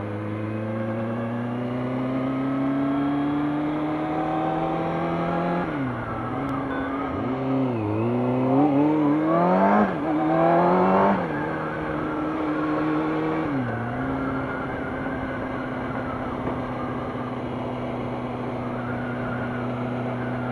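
Kawasaki ZX-6R inline-four engine heard from the rider's seat, pulling with slowly rising revs, then easing off about six seconds in. Around ten seconds in it revs up hard twice with quick drops at the gear changes, then settles to a steady cruise.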